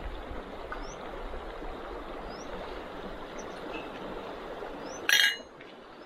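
Just-boiled water poured from a small camping pot, a steady rush of liquid that stops about five seconds in with a bright metallic clink.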